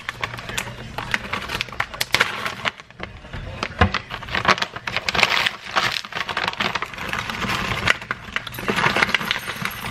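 Clatter of cutlery and dishes: many sharp clicks and knocks over a din of background chatter.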